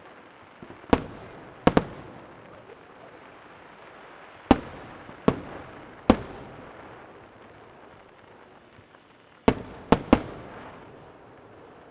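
Aerial firework shells bursting: about eight sharp booms in three clusters, each trailing off in an echo.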